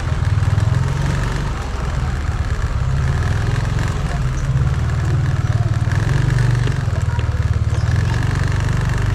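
Yamaha motor scooter's small single-cylinder engine running at low speed: a steady low putter that rises and falls slightly with the throttle.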